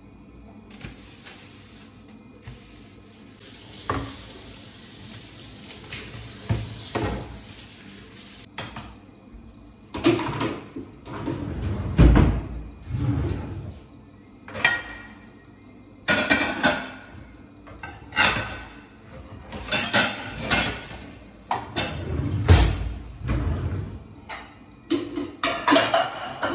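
Hard household objects clattering and knocking as they are handled and set down, in a long irregular run. A steady hiss lasts for about the first eight seconds.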